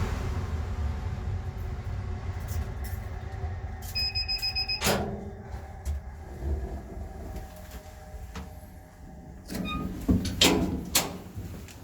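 Two-person air shower booth's fans running down after the air-blast cycle, a low rumble that slowly fades. About four seconds in a short, rapidly pulsing electronic beep sounds, then the booth's doors click and knock as they are handled.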